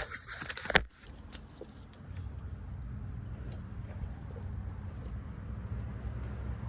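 Crickets trilling steadily over a low rumble, with a sharp click a little under a second in.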